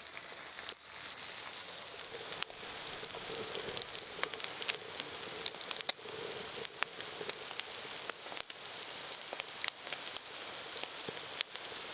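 French toast frying in a pan: a steady sizzling hiss with frequent small pops and crackles.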